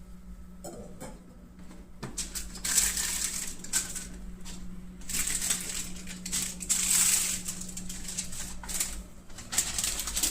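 Packaging being handled during an unboxing: paper and plastic crinkling and rustling in several bursts, with small clicks and taps.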